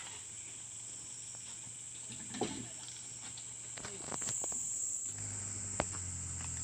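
Steady high-pitched insect chirring, with a brief animal-like call about two and a half seconds in, a few light clicks, and a low steady hum that sets in about five seconds in.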